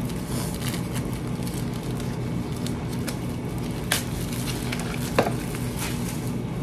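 Light crinkling and two sharp plastic clicks as an instant noodle cup is handled and opened, over a steady electrical hum.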